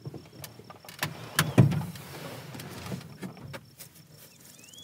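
Car door unlatched and pushed open, with a few clicks and a loud clunk of the latch and hinge about one and a half seconds in, then rustling as someone climbs out. A short bird chirp near the end.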